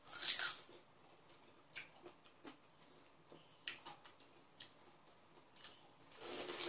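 Biting and chewing fresh pineapple flesh, with a loud wet bite at the start and another near the end. Small moist chewing clicks come in between.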